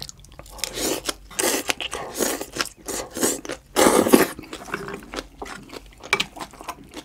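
Close-miked slurping and chewing of long strands of green onion kimchi (pa-kimchi): a run of noisy slurps drawing the strands into the mouth, loudest about four seconds in, then quieter chewing clicks.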